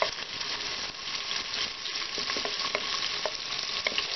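Chopped onion sizzling in hot oil with cumin seeds in an aluminium pressure cooker: a steady frying hiss, with scattered light clicks and scrapes of a wooden spatula pushing the onion off a plate.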